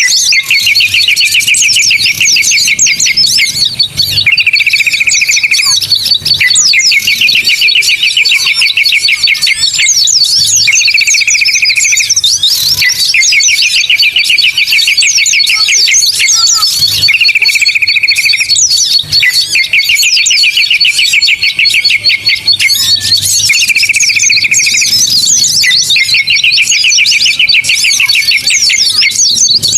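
Bird-lure recording of many small songbirds calling at once: rapid buzzy trills that come back in a regular cycle every few seconds, alternating short and long, over a continuous high chatter of chirps and a steady thin high note.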